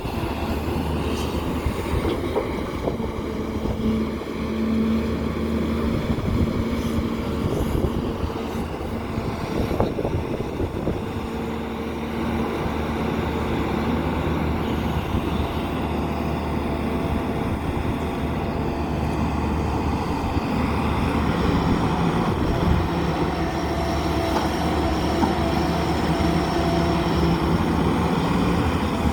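JCB backhoe loader's diesel engine running steadily under work, with whining tones that come and go several times.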